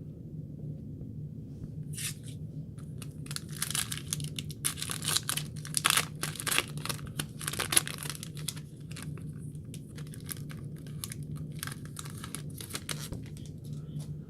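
Wrapper of a trading card pack being torn open and crinkled, loudest from about two seconds in for several seconds, then lighter crackling rustles.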